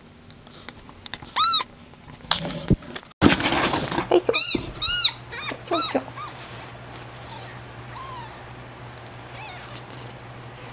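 Newborn kitten mewing: thin, high, arching cries, about eight in all, loudest in a quick run from about four to six seconds in and fainter after. A burst of rustling handling noise comes about three seconds in.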